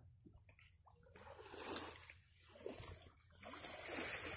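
Pond water splashing and sloshing around people wading waist-deep and working a fishing net, in two swells: one starting about a second in and a louder one near the end.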